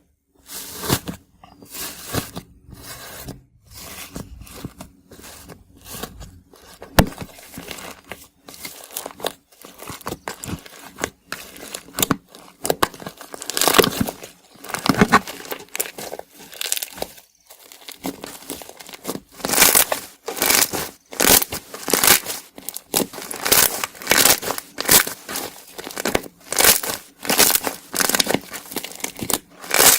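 Iceberg slime being squeezed and pressed, its hardened crust crackling and crunching in repeated bursts that come faster and more regularly, about two a second, in the second half.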